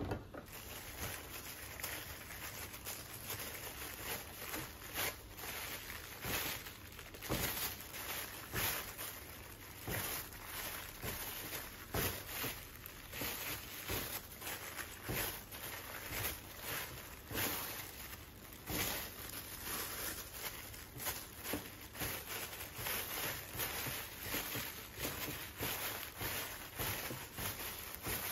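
Thin disposable plastic gloves crinkling and rustling as hands press and knead a sticky marshmallow and biscuit mixture in a dish, a continuous run of irregular crackles.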